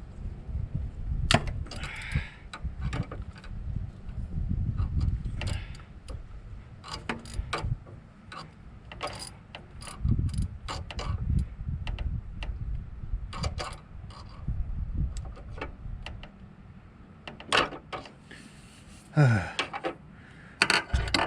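Ratchet and hand tools working the 10 mm bolts on the back of a VTEC solenoid in an engine bay: irregular clicks, metal knocks and scraping over rubbing, handling noise. A short, low, falling grunt near the end.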